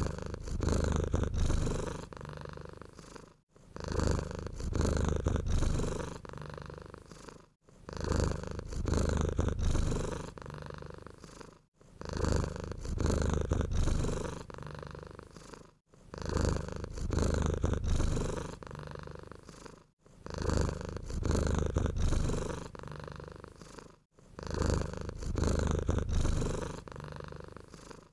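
Domestic cat purring close up, a low rumble that swells and fades in even cycles of about four seconds, each broken by a very brief gap.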